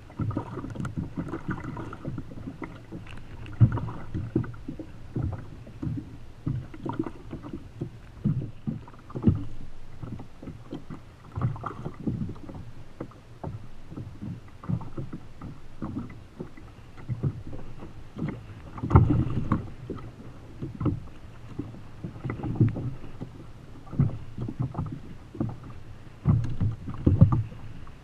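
Choppy sea slapping against the plastic hull of a Feel Free Lure 13.5 fishing kayak: an irregular run of low thuds and splashes, with louder knocks about 4 seconds in, around 19 seconds and near the end.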